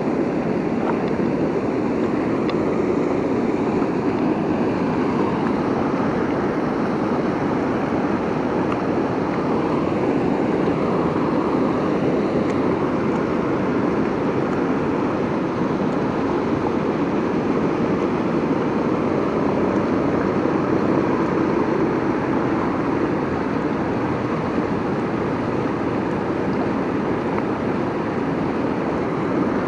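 Steady rush of water pouring over a low-head dam's spillway and churning in the whitewater below.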